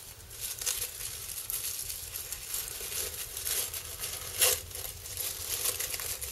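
Pink tissue paper rustling and crinkling as a small wrapped gift is unwrapped by hand, in a run of irregular crackles with one louder crinkle about four and a half seconds in.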